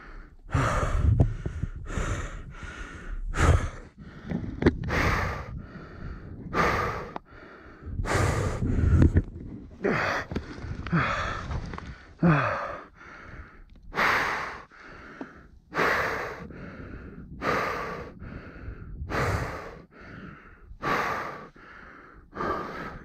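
A person breathing heavily and fast, a hard breath roughly every second or so, as after hard physical exertion.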